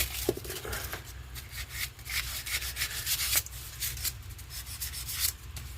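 Sandpaper rubbing on a small piece of wood in uneven back-and-forth strokes, sanding out rough saw cut marks.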